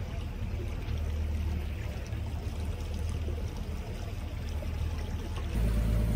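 Water sloshing and lapping against a boat's hull over a low steady hum. About five and a half seconds in, the sound changes abruptly to a louder low rumble.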